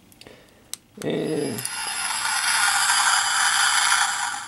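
Sound effect from the Revell Snaptite Millennium Falcon kit's electronic sound module, played through its small speaker. After a click, a short low cry falls in pitch, followed by a steady hissing rush that lasts about three seconds and cuts off suddenly.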